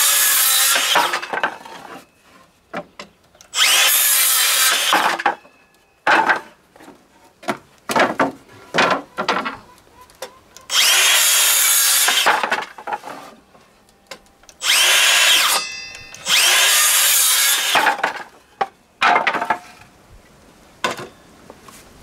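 A power tool working wood in repeated short runs of one to two seconds, about five main runs with short blips between, the motor pitch sweeping as it speeds up and slows.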